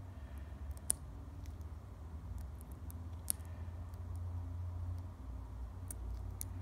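Ballpoint pen drawing on paper: faint scratching and ticking of the pen tip, with two sharp ticks about a second in and just past three seconds, over a steady low rumble.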